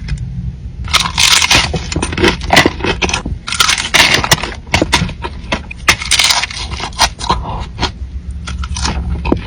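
Close-miked eating: crunchy bites and chewing come in irregular crackly bursts, the biggest about one, four and six seconds in, over a low steady hum.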